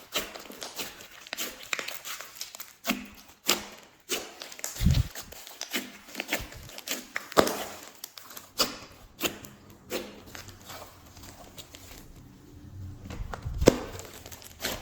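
Glossy slime being squished and stretched by hand, making an irregular run of sticky clicks and pops with a few louder snaps.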